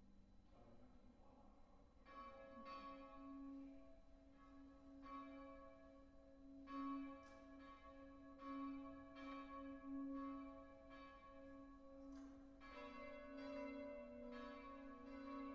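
Church bells ringing faintly: several bells struck in overlapping strokes, each tone ringing on. The ringing sets in about two seconds in and grows fuller near the end.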